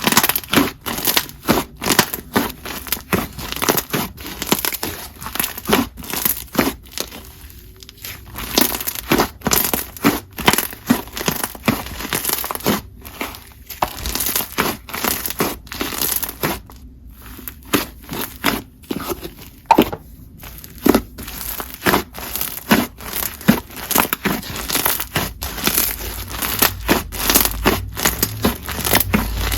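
Cloud cream slime being squished, stretched and pressed by hand, giving off dense, irregular crackles and pops several times a second.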